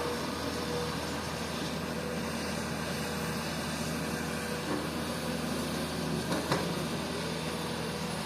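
Komatsu PC200 hydraulic excavator's diesel engine running steadily under work, with a sharp knock about six and a half seconds in.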